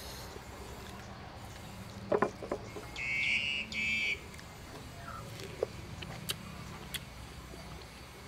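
Eating at the table: a sharp crunch about two seconds in and a few light clicks as lettuce-wrapped beef is bitten and handled. Just after the crunch, a bird calls twice in short high notes.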